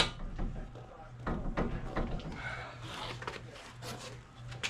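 Scattered knocks and clanks of metal parts and tools as a suspension part is wiggled into place during a lift install, over a steady low hum.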